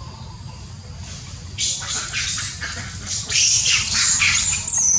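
Long-tailed macaque giving a rapid run of shrill, high-pitched squeals, starting about one and a half seconds in and lasting about three seconds.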